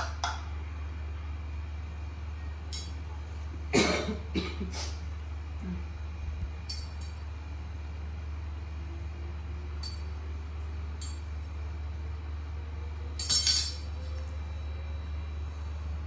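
Steady low hum with a few scattered light knocks and clinks; a quick cluster comes about four seconds in and the loudest about thirteen seconds in.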